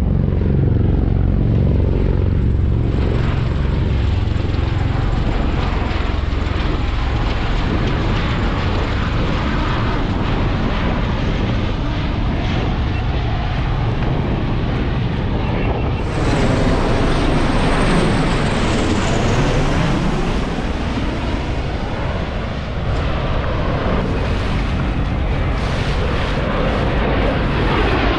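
Military aircraft flying low overhead: first a pair of Bell Boeing V-22 Osprey tiltrotors with a heavy rumble, then, after an abrupt change about halfway through, a pair of A-10 Thunderbolt II twin-turbofan jets passing over, their whine falling in pitch as they go by.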